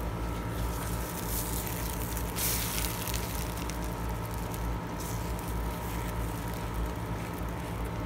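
Thin pancake batter sizzling in a hot nonstick frying pan while a silicone spatula lifts and turns the pancake, with a louder hissing rush about two and a half seconds in and a shorter one near five seconds. A steady low hum runs underneath.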